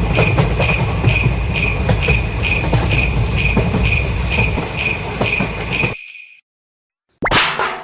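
Japanese level-crossing alarm bell dinging rapidly and evenly over a heavy low rumble. Both cut off about six seconds in. About a second later comes a sharp hit with a quick falling tone, a cartoon sound effect.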